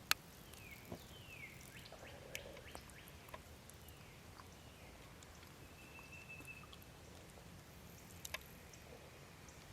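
Faint wild bird calls: a few short falling chirps in the first few seconds, then a thin held whistle about six seconds in, with scattered light clicks over a quiet outdoor background.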